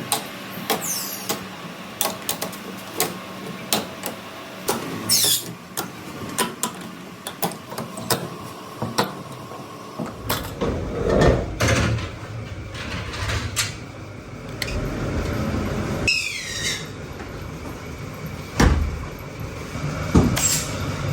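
Factory machinery working, with many sharp clacks and knocks over a steady hum, and a few short squeals that fall in pitch.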